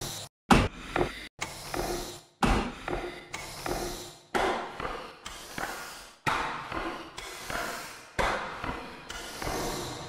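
Edited sample collage of heavy breathing and snorting sounds, chopped into chunks that start suddenly and are cut off. A new chunk comes roughly every second, some separated by dead silence.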